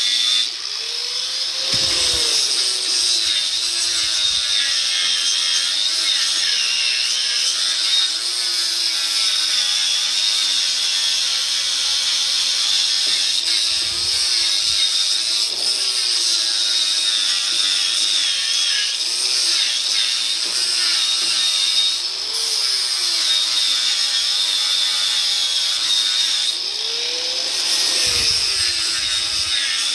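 Angle grinder grinding down welds on a steel truck frame, running steadily with a whine and a high hiss of abrasive on steel. Its motor pitch rises and falls back briefly about two seconds in and again near the end.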